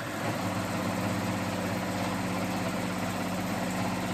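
Electric sewing machine running steadily at speed, the needle stitching in a rapid, even rhythm over the motor's hum while top-stitching fabric.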